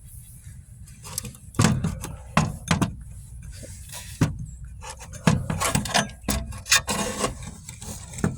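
Irregular clicks, knocks and brief scraping of small parts being handled and fitted together by hand.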